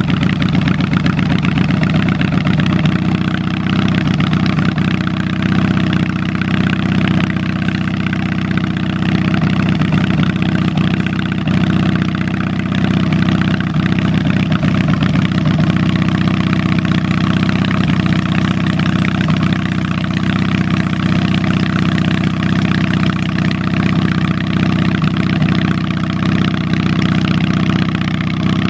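1983 Yardman (MTD) garden tractor engine running steadily, heard through its upright open exhaust stacks while the tractor drives across grass.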